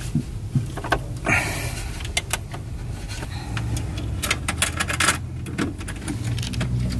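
Hands and a screwdriver working in a metal breaker panel (Square D QO load center): a string of sharp clicks and metallic taps, busiest about four to five seconds in, over a steady low hum.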